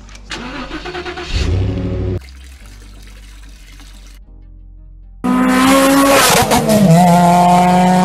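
Car engine starting loud about five seconds in, its pitch flaring high and then dropping after a second and a half to a steady idle. Before it, clattering handling noises and then a steady hiss of fuel running from a pump nozzle into a plastic gas can.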